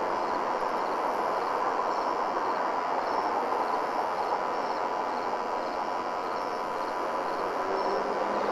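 A steady rushing drone of noise with a faint hum in it, and thin high tones that come and go.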